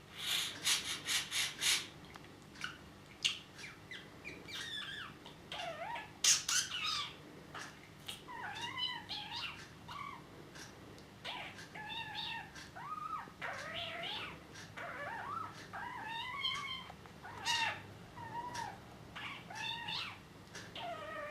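Budgerigar making a string of odd chirps and warbles: a run of quick clicks in the first couple of seconds, then many short calls that bend up and down in pitch.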